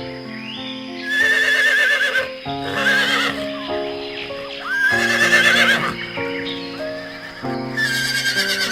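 Horse neighing four times, each a loud, wavering, high whinny, over light background music.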